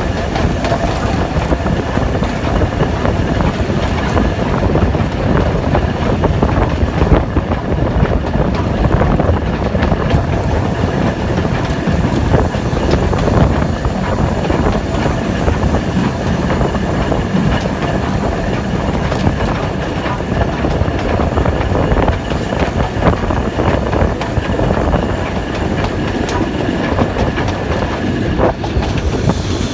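BR Standard Class 5 steam locomotive No. 73082 Camelot running along the line, heard close up from its footplate: a steady heavy rumble of wheels and motion, with the wheels clicking over the rail joints.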